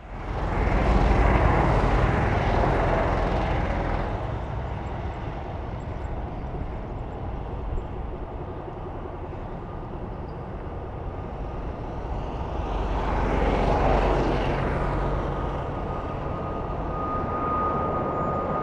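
Boeing 747-400F freighter's four jet engines at takeoff power during the takeoff and climb-out. The sound is loud at first, eases off, then swells again about 13 seconds in as the jet climbs toward overhead, and a steady high whine comes in near the end.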